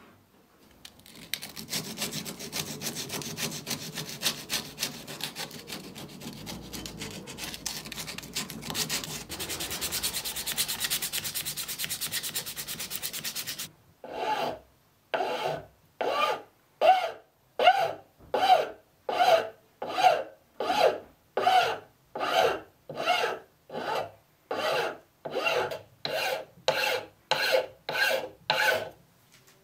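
Hand abrading on the axe: fast continuous scrubbing for about thirteen seconds, then a short pause and around eighteen slow, even rasping strokes, a little under one a second.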